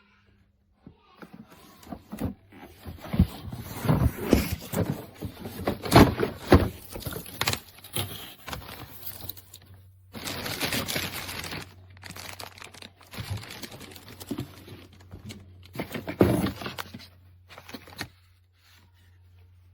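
Handling noise: irregular knocks, scrapes and crinkling, densest in the first half with another loud cluster later on, dying away near the end.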